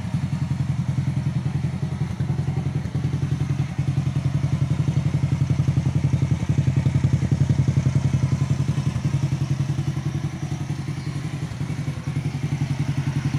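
Honda Supra single-cylinder four-stroke motorcycle engine idling steadily with a fast, even pulse; the level swells a little in the middle and eases slightly later on.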